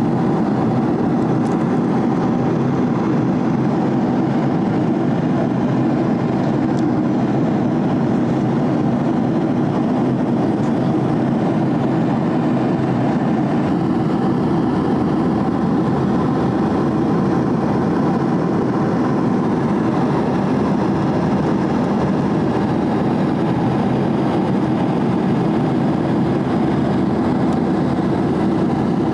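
Steady cabin drone of an airliner in flight: a low, even rushing noise that holds at one level without change.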